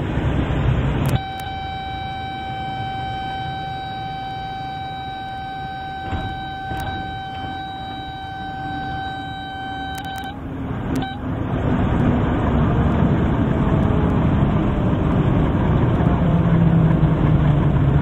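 Light-aircraft cabin noise from a Piper Super Cub drops sharply about a second in. A steady high tone then holds for about nine seconds, with a few clicks, and cuts off. The engine noise rises again and runs steadily to the end.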